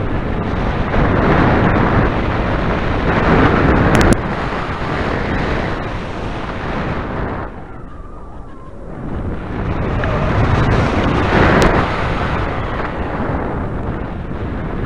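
Airflow rushing over the microphone of a hang glider's onboard camera in flight, swelling and easing with airspeed. It drops away for about a second and a half midway through, as the glider pitches up and slows, then builds again.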